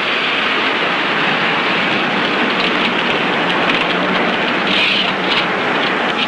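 Steady noisy rush of a car driving along a street and pulling in at the curb.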